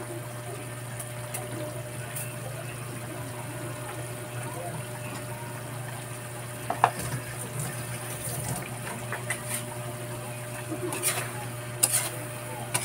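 Alamang (tiny shrimp) frying and bubbling in oil and pork fat in a metal pan, a faint crackle over a steady low hum. There is one sharp click about halfway, and near the end a metal spoon stirring and scraping against the pan in a few quick knocks.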